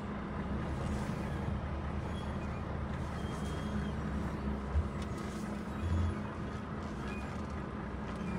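Volvo FH timber truck's diesel engine running steadily as the truck reverses slowly, with a single knock about five seconds in.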